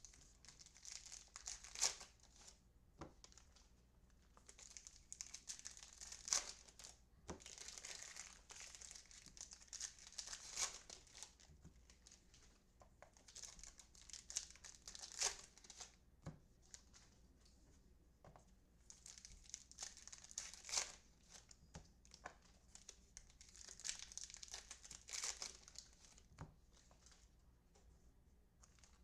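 Foil trading-card pack wrappers crinkling and tearing as packs are opened by hand, in repeated short bursts with quiet gaps between them.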